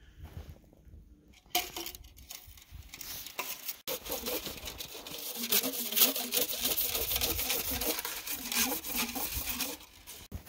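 Metal stovepipe sections of a wood-burning tent stove being slid into one another: about four seconds in a long rasping, scraping metal-on-metal rub starts, with a wavering squeal under it, and it stops near the end.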